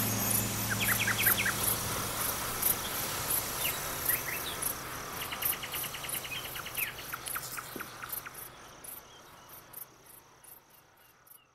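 Crickets chirping in a steady rhythm with short bird chirps and trills mixed in, over a low steady hum, the whole ambience fading out to near silence by the end.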